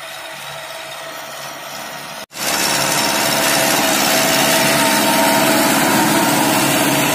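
TAFE 5900 DI tractor's diesel engine working steadily under load while pulling an 18-disc harrow through dry ploughed soil. Heard from a distance at first; after a brief dropout about two seconds in it is suddenly much louder and close, with a harsh grinding noise from the harrow discs cutting through the clods.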